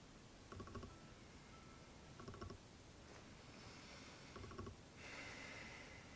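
Near silence: faint room or outdoor background with three brief, faint sounds about two seconds apart.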